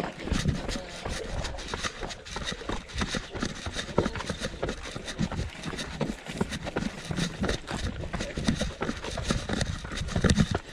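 Running footsteps of trail runners on a dirt and rock path: a quick, uneven patter of footfalls, the nearest from the runner carrying the camera.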